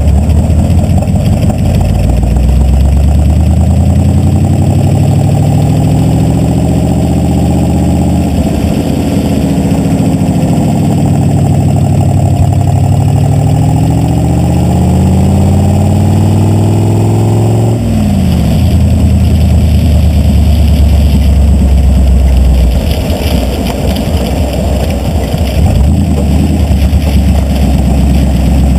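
Ford rat rod's engine pulling on the road, heard from beneath the front end: the engine note rises and falls several times, drops sharply about 18 seconds in, then runs steadier and lower, over road noise from the tyres on wet pavement.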